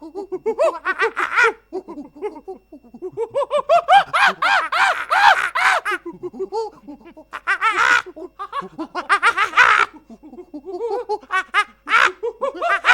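High-pitched laughing in quick repeated bursts with short breaks between the bouts: a laughter sound effect.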